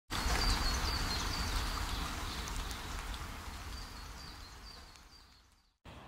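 Outdoor nature ambience: a bird chirping over and over against a steady rushing background noise. The whole sound fades out gradually and ends in silence just before the end.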